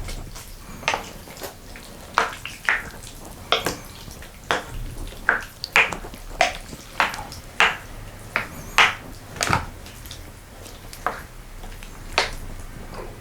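Close-miked eating of spicy sausage stew with ramen noodles: a string of about fifteen short, sharp mouth and utensil sounds, roughly one every half second to a second, with spoon and dish clinks.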